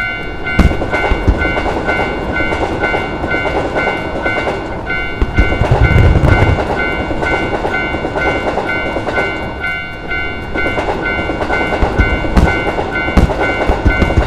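Japanese level-crossing warning bell ringing in a steady, repeating on-off pattern while a train passes with a continuous loud rumble. There are heavier low thumps about six seconds in and again near the end.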